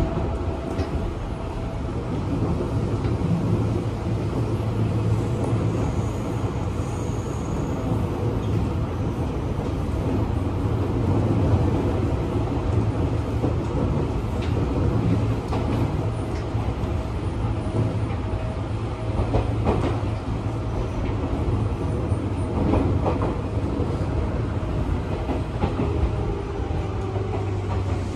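Interior running sound of a Seibu New 101 series electric commuter train between stations: a steady rumble of wheels and running gear, with a few short clacks over rail joints. Near the end a tone begins to fall.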